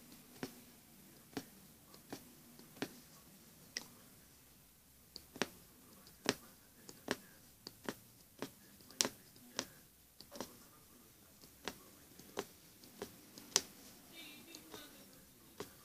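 Punch needle (magic needle) stabbing through embroidery fabric: a sharp click with each stitch, about one to two a second at an uneven pace.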